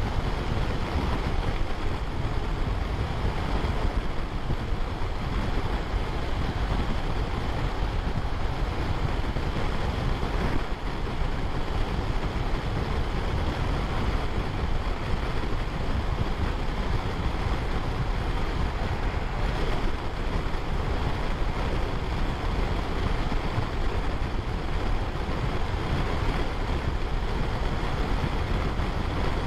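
Steady wind rush over the microphone from a BMW R1150RT motorcycle cruising at highway speed, about 120 km/h, with its engine running underneath.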